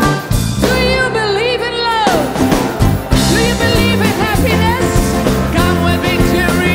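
Live pop band playing, with bass guitar and drum kit under a wavering vocal melody line.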